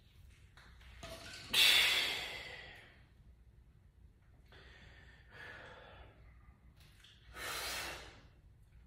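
A man breathing hard from the exertion of barbell front squats: a loud forceful exhale about a second and a half in that trails off, a softer breath around five seconds, and another strong exhale near the end.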